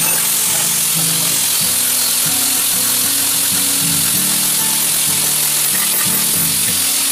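Background music with a stepping bass line, over the steady high-pitched noise of an electric angle grinder grinding down welds on a metal tube frame.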